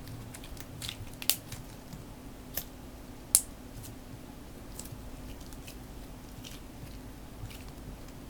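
Slime being squished and mixed by hand, giving scattered sticky clicks and small pops, a couple of them sharper than the rest.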